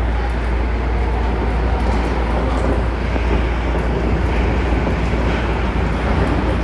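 Inside a Shonan Monorail suspended monorail car while it runs: a steady, loud low rumble of running noise with no letup.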